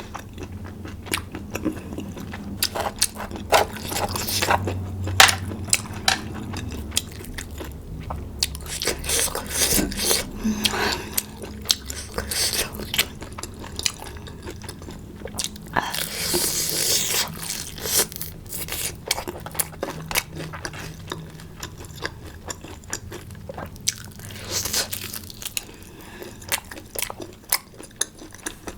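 Close-miked eating of hotpot food: repeated biting and chewing with crunches and wet mouth clicks, and a longer slurping or crunching stretch about two-thirds of the way through.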